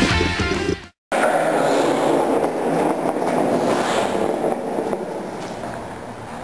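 Heavy rock music fades out in the first second and cuts to silence at an edit. It is followed by a steady rushing background noise from the concrete stairway, which slowly grows quieter toward the end.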